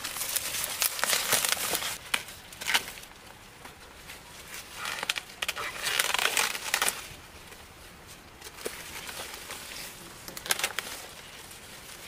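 Dry corn leaves and husks rustling and crackling in several bursts, with sharp snaps, as corn is picked by hand.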